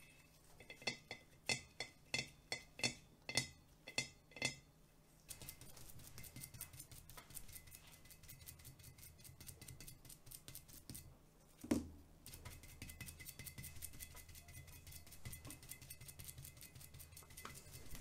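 About ten sharp clinks with a ringing glass tone, then a sponge dauber dabbing paint onto a glass demijohn in a fast patter of soft taps. Near the middle the patter pauses, a single thump sounds, and the dabbing resumes.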